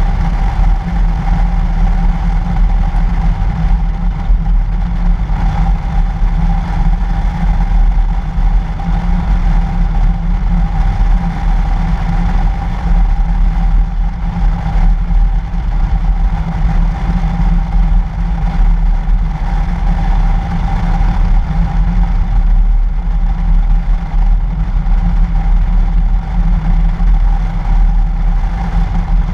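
Toyota FJ Cruiser's 4.0-litre V6 running at a steady cruise on a snow-covered road, mixed with tyre and wind rumble on a camera mounted outside the vehicle. The sound is a loud, even low rumble with a steady mid-pitched drone and no sudden changes.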